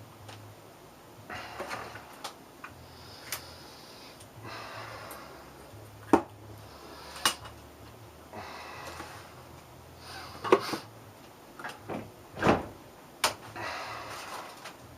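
Microwave-oven-transformer high-voltage rig buzzing with a low hum, broken by irregular sharp snaps and short bursts of crackle, the loudest around six, ten and twelve seconds in.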